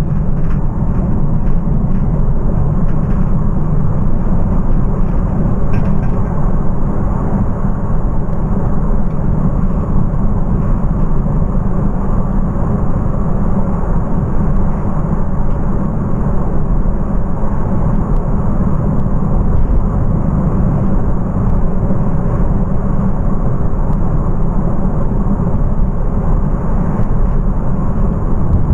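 Steady low road rumble inside the cab of a VW T5 van converted to electric drive, heard while it is driving: tyre and wind noise with no engine note.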